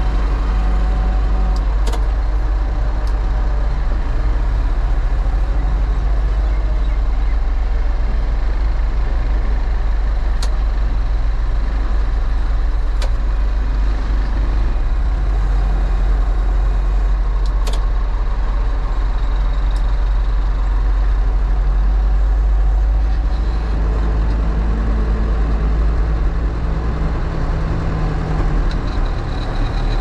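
New Holland backhoe loader's diesel engine running steadily under work, heard from inside the cab as a loud, continuous low rumble, with a few faint sharp ticks here and there.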